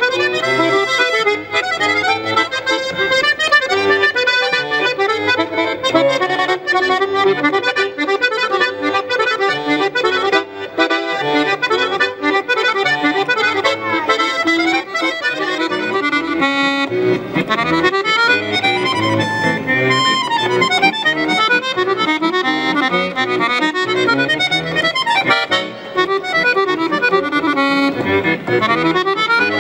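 Solo chromatic button accordion playing a piece, with dense, continuous melody and bass notes.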